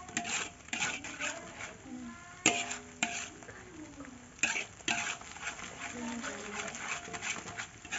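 Metal spatula scraping and knocking against a wok while stirring scrambled egg, with several sharp clanks in the middle.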